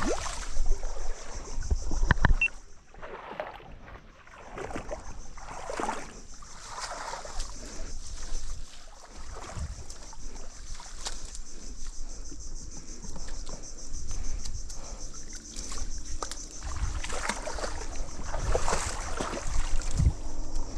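Water splashing and sloshing at irregular moments in shallow ditch water, loudest near the start, about six seconds in and near the end, over a steady high hiss.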